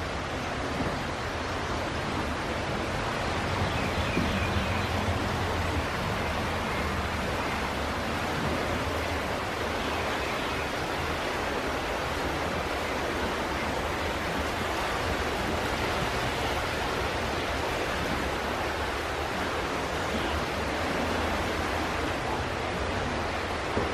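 Steady rushing of a flooded creek running high and fast.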